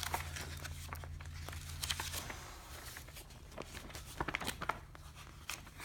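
Paper pages of an instruction booklet being handled and turned: faint rustles and light clicks, over a low hum that stops about two seconds in.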